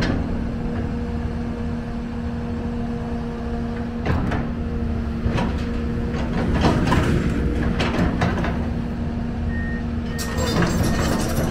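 A 2011 Komatsu PC240LC hydraulic excavator running as it swings and works its boom, with a steady engine hum. Several sharp clanks come between about four and nine seconds in.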